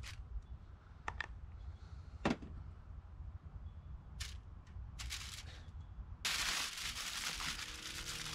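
Aluminium foil being handled and folded over a pan of fish fillets: scattered sharp clicks and short crinkling crackles, then a steady hiss that starts abruptly about six seconds in.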